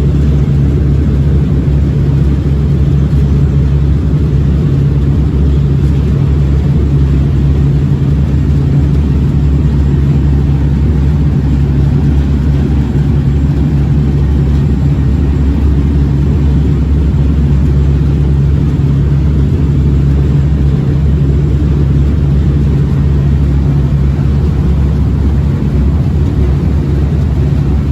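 Tour boat's engines running steadily, a loud, even low drone heard aboard.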